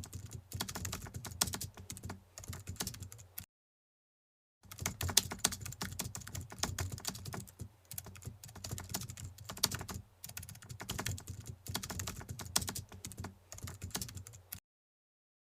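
Rapid computer-keyboard typing clicks in long runs, cut off by a second of complete silence a few seconds in and again near the end.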